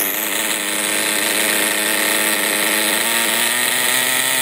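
Redcat Volcano S30's small two-stroke nitro glow engine idling steadily. It is still running rich, with its high-speed needle not yet leaned out.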